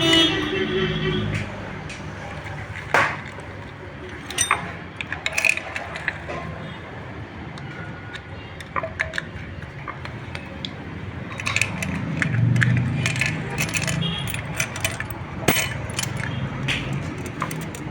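Scattered sharp metallic clinks and taps: bolts and tools handled against a motorcycle's clutch plate as it is bolted onto the engine.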